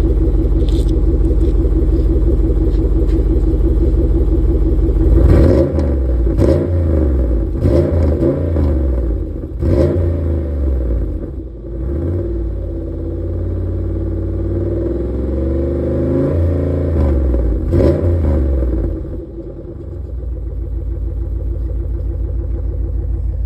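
Chevrolet Impala V8 exhaust with the resonator cut out and replaced by a plain pipe, not straight-piped. The engine idles steadily, is blipped in several quick revs about five seconds in, given a longer, slower rev in the middle and one more blip, then settles back to idle.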